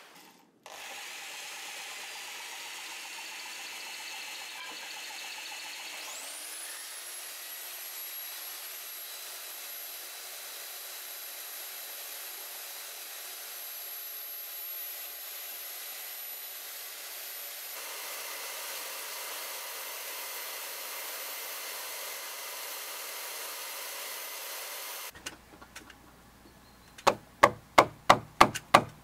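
A handheld electric belt sander runs against an ash mallet handle spinning on a lathe, a steady machine drone. About six seconds in the sander's motor spins up as a rising whine that then holds steady. Near the end a round-headed wooden mallet knocks a peg into a roof purlin in a quick run of blows, about three a second.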